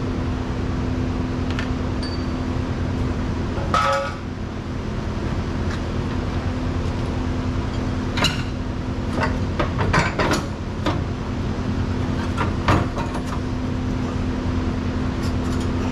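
Metal hand tools clicking and clinking against the truck's underside during transmission removal, scattered knocks with a short ringing clink about four seconds in and a cluster of taps later on, over a steady low hum.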